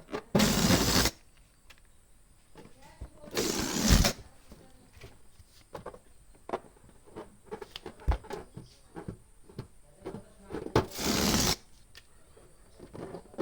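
Balloon pump pushing air in three short whooshes: one just after the start, one about four seconds in, and one near the end. Small clicks and rubbing noises come between them.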